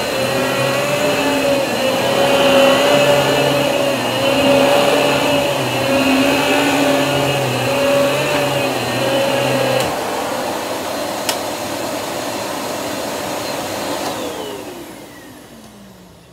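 Riccar Pizzazz canister vacuum running with its motorised power head pushed back and forth over carpet, a whiny pitch that wavers with each stroke. About ten seconds in the power head's tone stops and a click follows. Near the end the vacuum motor is switched off and winds down in a falling whine.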